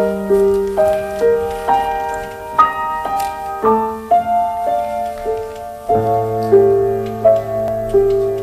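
Solo piano playing a gentle melody over held chords, a note or chord every half second or so; deeper bass notes join about six seconds in.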